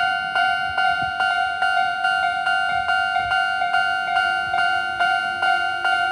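Japanese railway level-crossing warning bell ringing, a repeated clanging tone about two and a half strikes a second. A fainter, lower steady tone joins about four seconds in.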